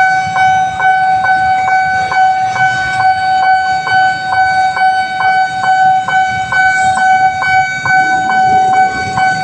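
Railway level-crossing electronic warning alarm sounding loudly: a steady high tone with a second tone beeping over it a little over twice a second.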